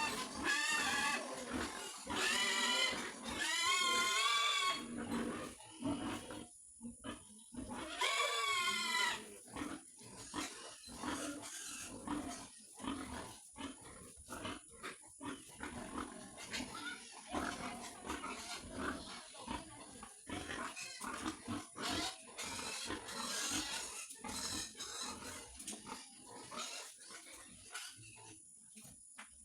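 Pigs squealing in loud, wavering squeals for the first few seconds and again around eight seconds in, then a quieter run of short, irregular grunts and noises.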